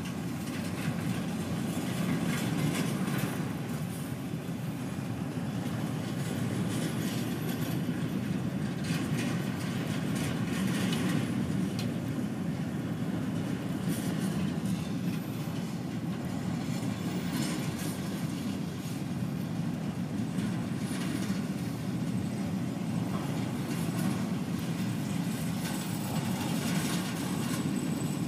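Intermodal container train's freight cars rolling past: a steady rumble of steel wheels on rail with irregular clicks and clacks.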